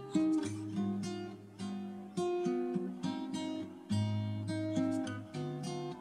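Background music: acoustic guitar strummed and picked, a new chord or note struck about every half second to a second.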